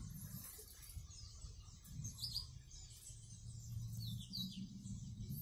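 Canaries chirping: a few faint, short, high chirps spaced a second or two apart, over a low rumble.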